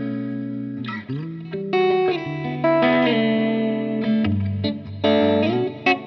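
Cave and Canary Meteor Standard electric guitar played fingerstyle through a Supro Delta King 12 amp with its drive engaged, giving lightly overdriven chords. The chords ring out and change every second or so, with a few sliding pitch changes between them.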